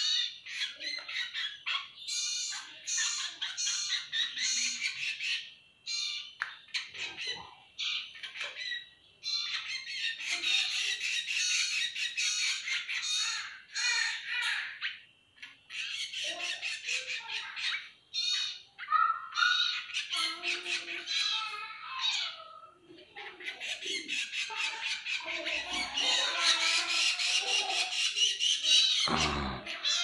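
Hand-reared fledgling songbirds giving harsh, high-pitched begging squawks in rapid runs, with a few short pauses. These are the calls of young birds begging for food.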